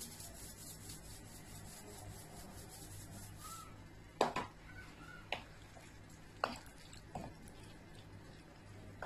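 Wooden spoon stirring peppers and tomatoes in a frying pan: a few separate knocks and scrapes against the pan, starting about four seconds in. Before that, a fast, faint rasping ticking.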